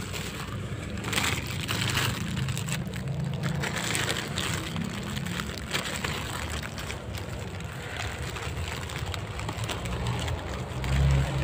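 Clear plastic toy packaging crinkling and rustling as bagged toy trucks are grabbed and pulled off the rack, over a steady low rumble.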